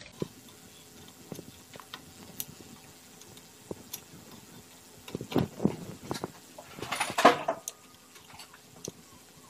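Small clicks, taps and scraping rustles of a resistor's leads being worked into a CRT television's circuit board by hand, with a louder scrape about five and a half seconds in and the loudest rustling scrape about seven seconds in.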